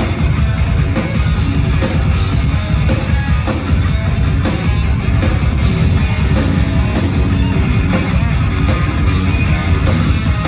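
Instrumental progressive metal played live and loud: two electric guitars and a drum kit.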